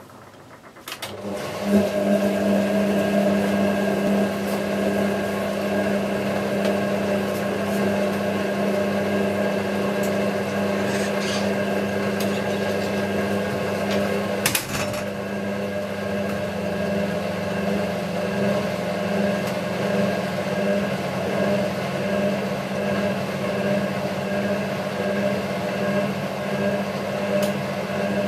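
Hotpoint 9530 washing machine in its distribution-and-drain stage: about a second in, the drum motor speeds up to spread the load around the drum while the drain pump runs, then holds a steady hum. About halfway there is one brief clack.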